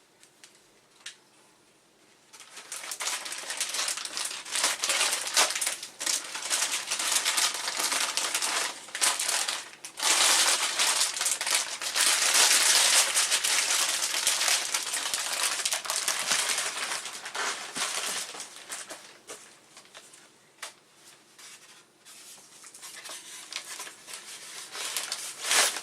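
Packaging being handled: a long stretch of crinkling and crumpling that starts about two seconds in, is loudest around the middle, dies down for a while and picks up again near the end.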